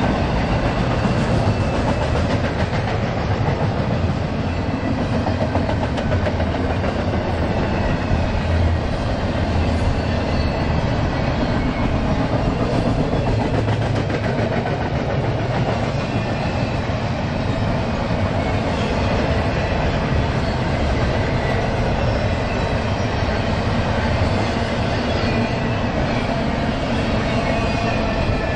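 Union Pacific double-stack container train rolling past at steady speed, the continuous rumble and rattle of its cars on the rails.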